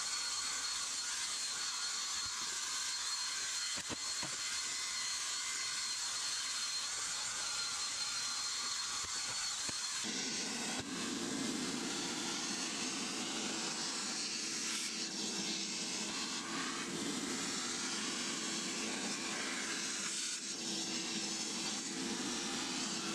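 A drill spinning a carpet brush scrubs car carpet with a steady hiss and a thin high whine. About ten seconds in, this switches to a carpet extractor wand sucking shampoo water out of the carpet, a steady rushing suction with a low hum.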